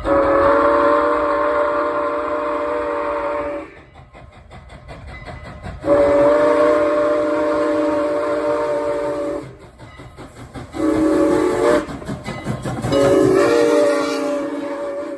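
Steam locomotive whistle on CN 2-6-0 Mogul No. 89 blowing two long blasts, one short and one long, the last held past the end: the grade-crossing signal. Each blast is several steady notes sounding together. Between blasts the engine's running is heard as a low rumble with a faint beat.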